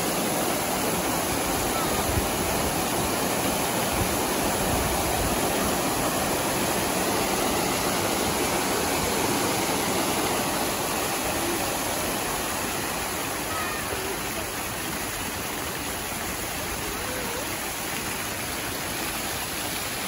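Fountain jets spraying and splashing down into a pool: a loud, steady rush of falling water, easing off a little past the middle.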